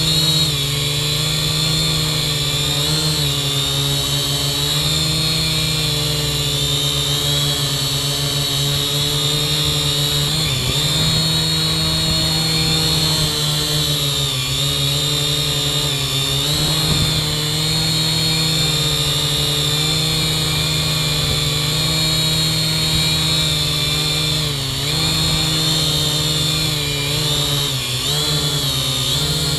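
Kaideng K70C quadcopter's motors and propellers whirring steadily in a hover, heard up close from a GoPro carried on the drone itself. The pitch wavers gently and dips briefly every few seconds as the throttle corrects the hover.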